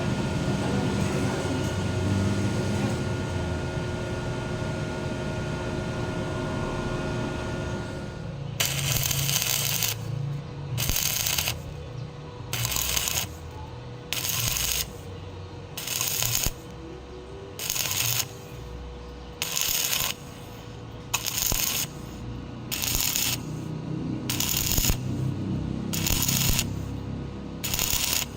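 Steady hissing noise for about eight seconds, then a stick-welding arc struck in short hissing bursts about once every second and a half, stopping and restarting in a regular rhythm.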